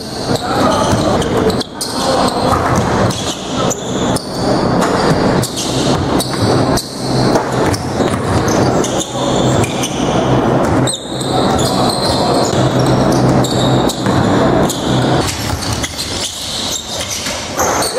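A basketball bouncing and thudding on a hardwood gym court during a pickup game, with players' voices and shuffling feet, echoing in a large hall.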